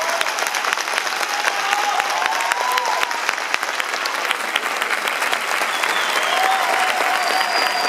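Crowd applauding, many hands clapping densely and steadily, with a few voices calling out over the clapping.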